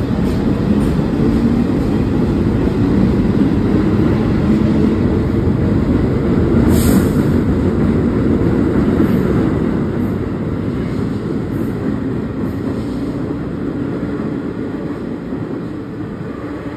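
New York City subway train running with a loud, steady rumble that swells and then slowly fades over the last several seconds. A brief sharp sound comes about seven seconds in.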